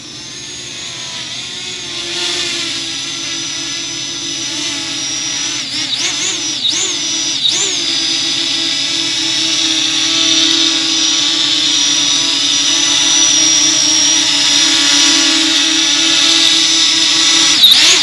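Parrot Anafi quadcopter's propellers buzzing with a high whine as it flies in close and hovers, getting louder over the first few seconds. The pitch dips briefly a few times as it adjusts, around six to seven and a half seconds in and again near the end.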